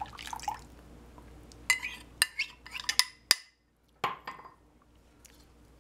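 A metal spoon clinking against a glass mixing bowl as melted butter is scraped in and stirred into liquid. There is a quick run of sharp clinks about two to three seconds in, then a couple more near four seconds.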